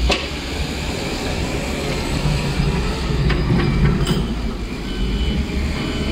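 Cat 924K wheel loader's diesel engine working as its wide plow blade scrapes and pushes snow along the pavement, with a few sharp knocks about three to four seconds in and short high beeps near the end.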